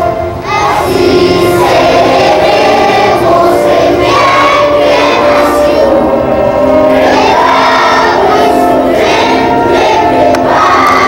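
Large crowd of schoolchildren singing a patriotic anthem together in unison, held notes changing about once a second.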